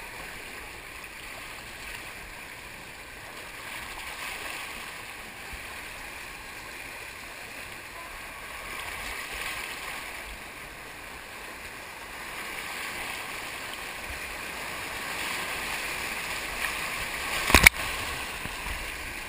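Rushing, churning water of an artificial whitewater rapids channel, heard close from an inner tube riding it: a steady hiss of water that swells and eases. Near the end comes one sharp knock or splash right at the microphone.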